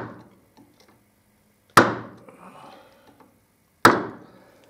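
Two sharp knocks about two seconds apart: a bench chisel being struck and driven down into the edge of a wooden tabletop, chopping out a 5 mm rebate. Each knock dies away within about a second.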